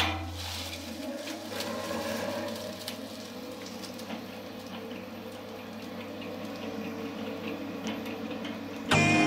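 Centrifugal oil spinner running with a steady hum as its basket of fried jackfruit chips spins to throw off the frying oil.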